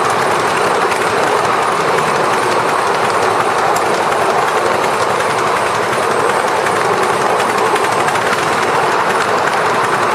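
A 7¼-inch gauge model of an LMS Black Five steam locomotive running with its train, heard from the footplate: a loud, steady rushing noise with faint clicks from the wheels on the track.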